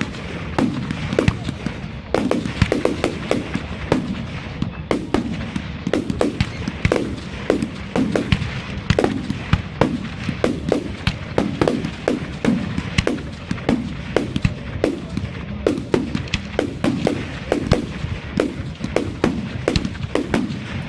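Professional firework display going off in a rapid, continuous barrage: several sharp bangs a second, each trailing off briefly.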